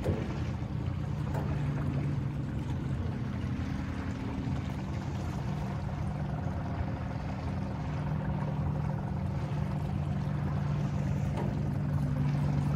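Outboard motor of a small aluminium fishing boat running slowly close by: a steady low engine hum.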